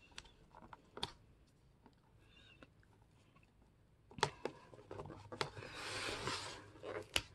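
Dried binding glue being picked and torn off a book's spine by hand: faint scattered crackles and sharp clicks, with a short tearing scrape about six seconds in. The glue is stubborn and comes away in small bits.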